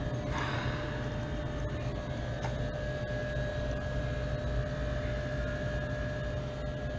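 Steady mechanical hum and rumble of running refrigeration equipment, with a steady tone over it. There is a brief scrape just after the start.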